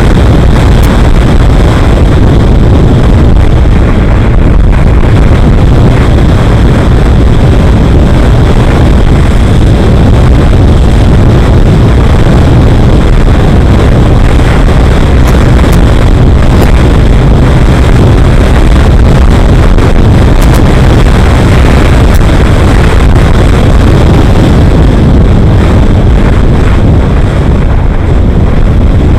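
Heavy, steady wind rumble buffeting the microphone of a camera on a moving vehicle, with road and vehicle noise underneath.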